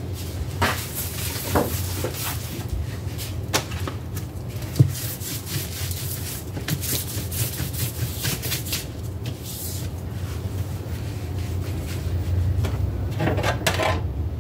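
Hands handling things on a kitchen countertop: scattered taps, knocks and rubbing as a placemat is moved and laid flat. There is a steady low hum underneath.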